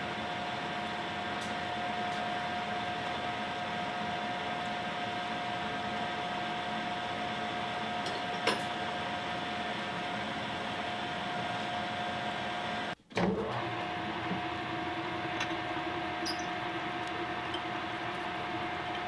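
Steady hum of running machine-shop machinery with a constant whine, a single sharp click about eight seconds in, and a brief cut-out around thirteen seconds after which a lower steady hum joins.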